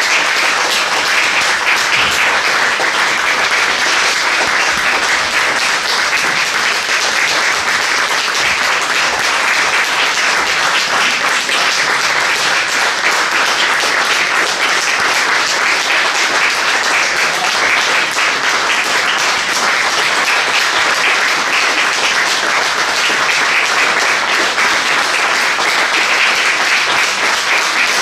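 Large audience applauding, a dense, steady clapping that holds at an even level throughout.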